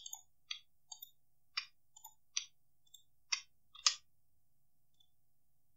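Faint computer mouse and keyboard clicks, about nine of them, irregularly spaced over roughly four seconds.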